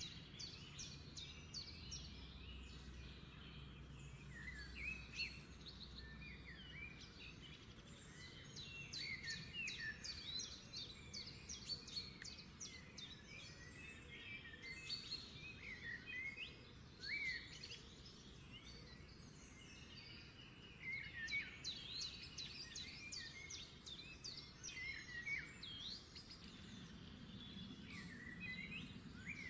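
Birds chirping busily, a stream of short high chirps and quick rising and falling calls, faint in the background.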